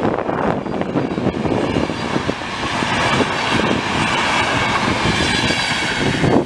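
Train hauled by an ÖBB Taurus electric locomotive passing close by: a loud, steady rumble and rush of wheels on rail, with a faint high whine in the middle.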